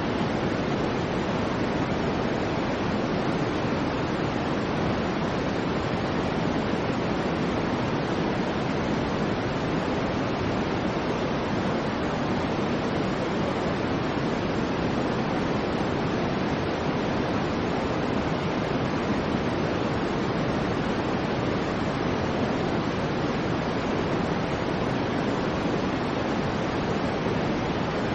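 Soft white noise for sleep: a steady, unchanging hiss, fuller in the low and middle range than in the highs.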